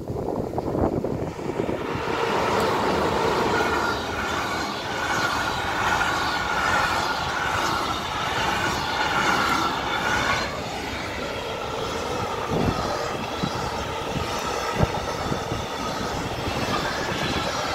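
Long container freight train passing close by: a steady rumble and rush of wheels on rail, with a high wheel whine through the first half and occasional sharp clacks as wheels cross rail joints.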